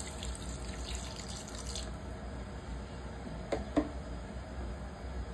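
Water poured from a container into a pan of chicken feet braising in adobo sauce, splashing for about two seconds as the braise is topped up. Two short knocks follow a little past the middle.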